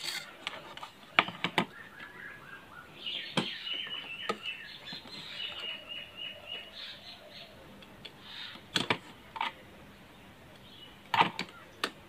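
Sharp clicks and taps as a phone circuit board and multimeter test probes are handled on a work table. In the middle comes a run of quick, high, repeated chirps.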